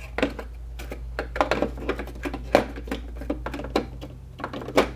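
Irregular clicks, taps and light scraping of plastic parts being handled as a circuit board is worked back into a washing machine's plastic control-panel housing, over a steady low hum.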